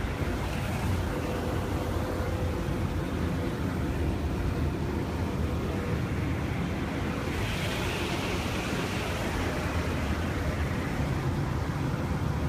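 Small plane's engine and rushing air heard from inside the cabin, a steady drone with a brighter hiss swelling for a couple of seconds past the middle.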